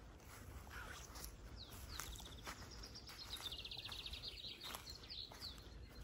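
A songbird sings a rapid trill of repeated notes that falls gradually in pitch and ends in a short flourish, starting about a second and a half in. Soft footsteps on a grassy path sound under the song.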